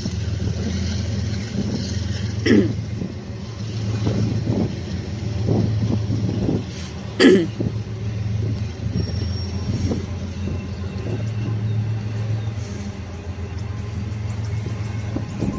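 BNSF intermodal freight train rolling past a grade crossing: a steady low rumble, with two sharp knocks, one a few seconds in and one about halfway through.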